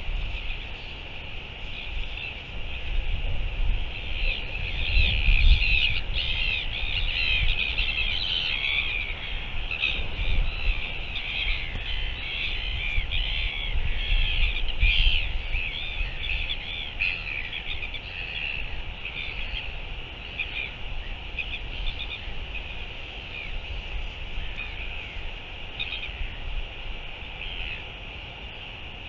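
Birds calling in a rapid, busy chatter, thinning out in the second half, over wind rumbling on the microphone.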